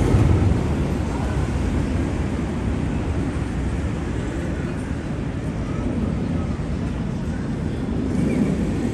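City street ambience: a steady low rumble of traffic with faint voices of passers-by.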